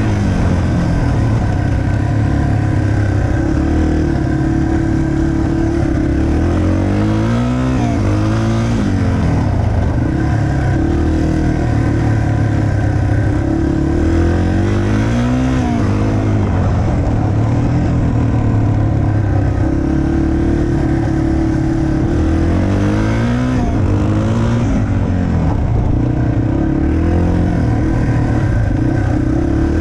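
Yamaha TT-R 230's air-cooled single-cylinder four-stroke engine running under way on a dirt track, its pitch rising and falling several times as the throttle is rolled on and off.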